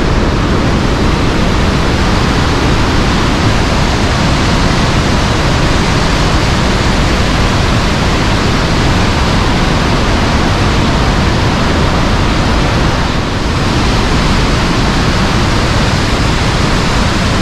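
Augrabies Falls on the Orange River in full flood: the steady, very loud rush of a huge waterfall, running at its highest level in years.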